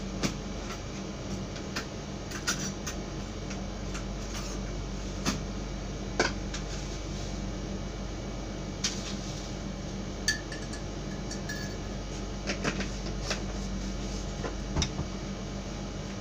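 A spoon and ceramic mugs clinking and clattering at irregular moments, a few clinks with a brief ring, as sugar goes into ginger tea. A steady low hum runs underneath.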